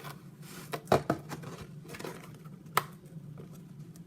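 Plastic TV dinner tray and its thin film lid clicking and crackling as fingers pick and press at it, with a few sharp clicks about a second in and again near three seconds.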